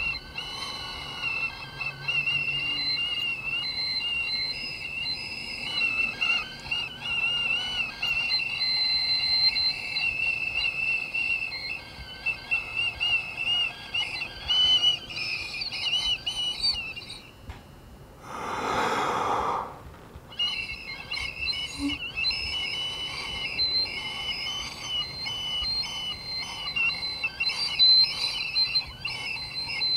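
A man making a shrill, wavering whistle-like noise in his throat, held for long stretches. It breaks off once past the middle for a short loud rush of noise, then starts again.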